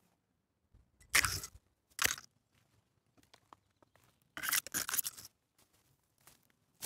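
Footsteps crunching on the dry litter of a conifer forest floor: a few irregular crunches, the longest run about two-thirds of the way through.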